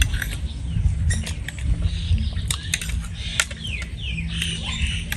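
A metal spoon clinking and scraping against a ceramic plate of food, in scattered sharp clicks, with close chewing sounds. Birds chirp in the background, with several short falling calls in the second half.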